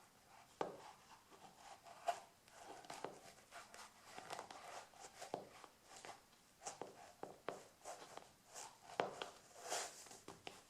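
Black leather stiletto court shoes shifting and scuffing on a parquet floor: soft rubbing with light, irregular heel taps and clicks rather than a walking rhythm, the firmest taps near the end.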